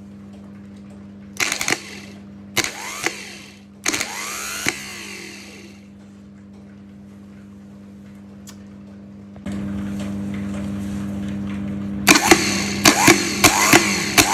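Renault 4L starter motor bench-tested off the car on jumper cables and energised through its solenoid. Each time it clicks in and spins up briefly with a whirring whine: three short bursts in the first few seconds, then several quick ones in a row near the end. It still works after years left outdoors.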